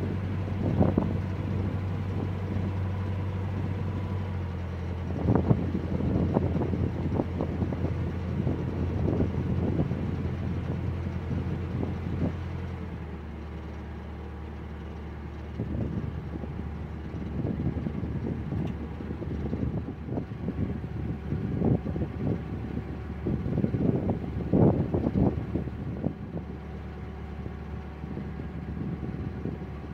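Narrowboat's inboard diesel engine running steadily under way, its note dropping lower and quieter about halfway through. Gusts of wind buffet the microphone throughout.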